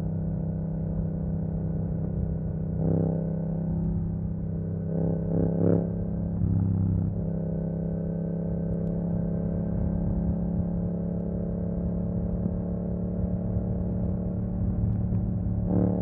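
Yamaha MT-07's parallel-twin engine through an Akrapovic exhaust with the dB killer removed, running at a steady engine speed. There are short louder surges about three seconds in, around five to six seconds in, and near the end.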